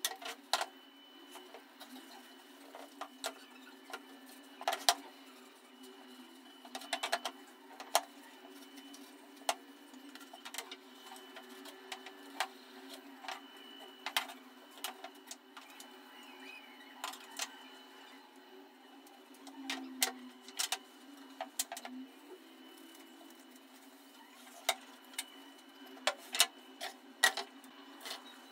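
Pine wooden parts clacking and knocking as they are handled and set down on a plywood workbench: irregular sharp clicks, sometimes several close together, over a steady low hum.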